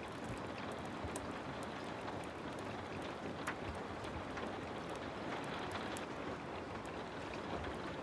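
Heavy rain falling steadily, with many small sharp ticks scattered through it.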